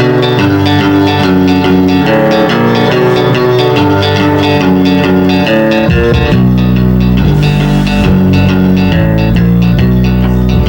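Live rock band playing an instrumental intro: a run of picked electric guitar notes over bass guitar, with the low end growing fuller about six seconds in.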